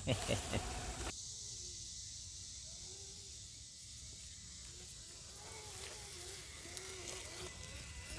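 Faint whine of a small RC crawler's electric motor and gears, rising and falling in short bursts of throttle, over a steady hiss.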